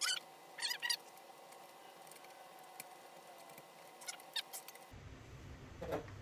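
Small scraping clicks of a hand tool working at a BMX seat's mounting bolt, in a few brief clusters.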